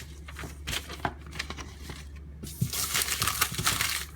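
Handling noise: scattered light clicks and taps, then about a second and a half of loud crinkling rustle near the end.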